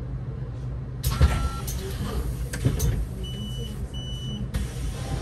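A Solaris Urbino 18 IV articulated city bus running, with a steady low engine hum and scattered clicks and knocks. Two short high electronic beeps sound about three and four seconds in.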